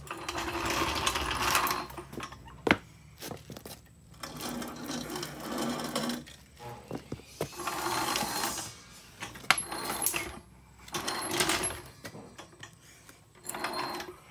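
Several short bursts of rapid mechanical rattling, each a second or two long, with a few sharp knocks between them, from hand work on a mower deck's caster wheel.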